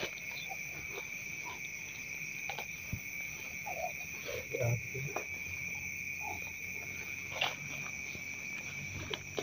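Steady high-pitched chorus of crickets and other night insects, with scattered faint rustles and snaps of footsteps pushing through tall grass and brush.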